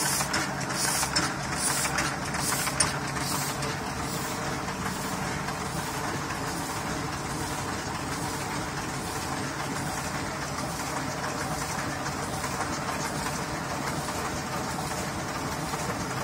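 1990 Heidelberg GTO sheetfed offset printing press running with a steady mechanical din. Through the first three seconds a sharp high hiss repeats about three times a second.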